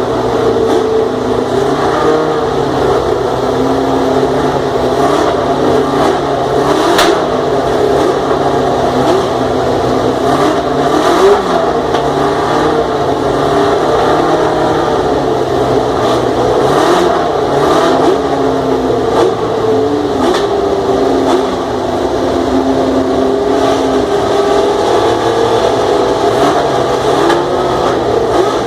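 1979 Lotus JPS Formula One car's Ford Cosworth DFV V8 running loudly at a steady idle, with repeated short blips of the throttle that briefly lift the pitch.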